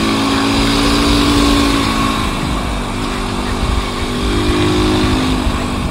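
Motorcycle engine running at highway speed, its note climbing slightly, dipping about two seconds in, then climbing again, under a steady rushing noise.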